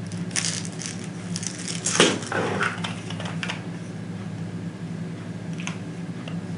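Plastic airsoft BBs rattling and clattering as they are poured from their packet and handled, loudest about two seconds in, then a few faint ticks near the end, over a steady low hum.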